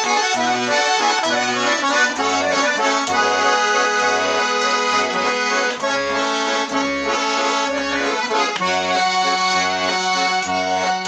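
Garmon (Russian button accordion) playing an instrumental introduction: a melody over a steady, regular bass pulse.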